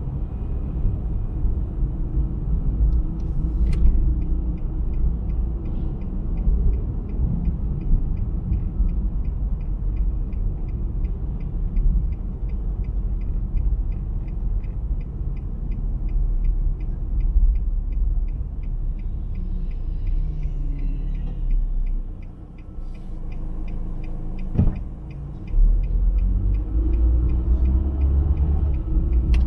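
Low road and engine rumble inside a moving car, with a faint, rapid, even ticking running through it. Near the end the rumble drops away for about three seconds, a single sharp click sounds, and then the rumble comes back.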